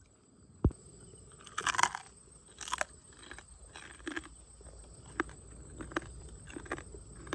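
A man biting and chewing crab: a sharp crack under a second in, two louder bouts of crunching at about two and three seconds, then slower chewing with single small clicks.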